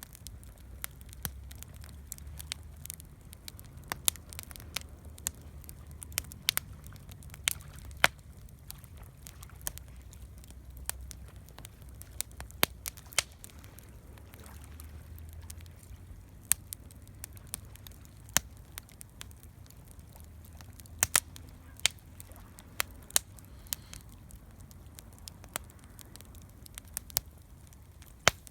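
Wood campfire crackling, with irregular sharp pops, a few of them loud, over the low steady rumble of the burning flames.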